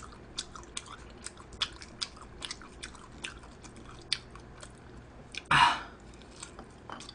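A person chewing a mouthful of spicy stir-fried pork intestines (gopchang) close to the microphone, with irregular sharp smacking clicks a couple of times a second. About five and a half seconds in there is a louder, short rush of noise.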